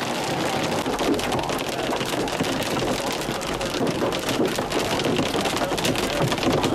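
Hail and heavy rain hitting a car's roof and windshield, heard from inside the cabin: a dense, steady clatter of many small impacts.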